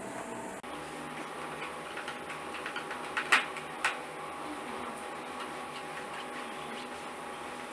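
Screwdriver driving screws into a convector heater's plastic back cover: faint irregular ticks, with two sharper clicks a little over three and four seconds in, over a steady faint hum.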